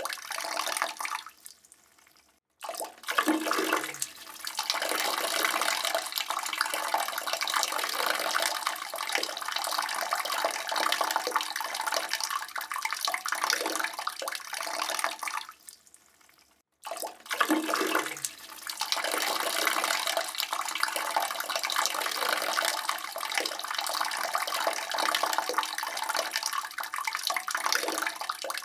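A man's urine stream splashing steadily into toilet bowl water. It trails off and stops about two seconds in and again about sixteen seconds in, each time starting again abruptly a moment later.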